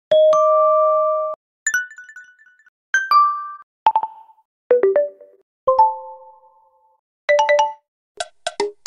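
OnePlus Nord 2T 5G notification tones played one after another: about seven or eight short, different chimes and dings of a few bright notes each, with short gaps between them.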